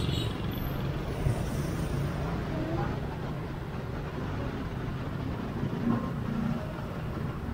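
Motorbike riding in city traffic: a steady low engine and road rumble with the noise of the surrounding traffic.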